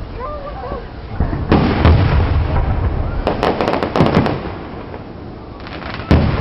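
Aerial fireworks shells bursting. A heavy boom comes about a second and a half in, then a cluster of crackling pops over a rumble around the middle, and another sharp boom near the end.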